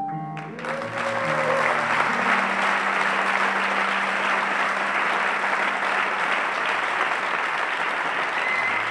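Audience applauding, starting about half a second in, just after the last notes on the piano. A low held note from the band lingers under the applause for several seconds before it fades.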